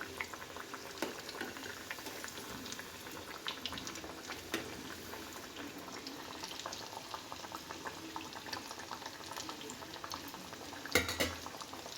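Masala vadai deep-frying in hot oil: a steady sizzle full of small crackling pops, with a brief louder clatter near the end.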